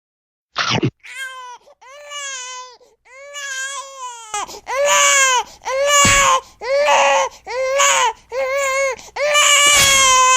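A cat meowing over and over in a long run of drawn-out meows, quieter at first and much louder from about halfway through, after a short sharp sound just after the start.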